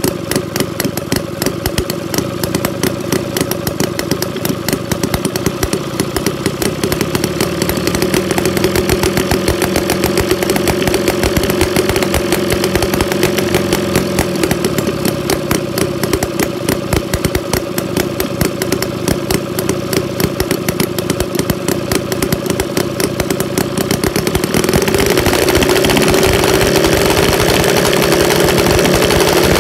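Quarter-scale Harley-Davidson Knucklehead V-twin model engine running just after a cold start, its rapid firing pulses steady. About 25 s in it speeds up and gets louder.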